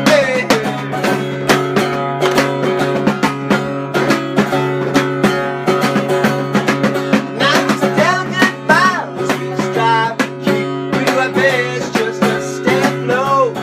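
Instrumental passage of plucked strings with a buzzing sawari tone over a steady low drone, struck in quick, percussive strokes, with notes bent in pitch twice, about eight seconds in and near the end.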